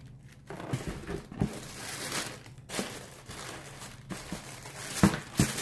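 Tissue paper and printed wrapping paper crinkling and rustling as they are handled and pulled out of a cardboard shoebox, with two sharp knocks near the end.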